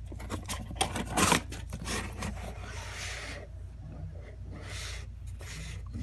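Cards being handled on a table: a cluster of sharp taps about a second in, then rubbing and sliding swishes as the cards are moved and set down.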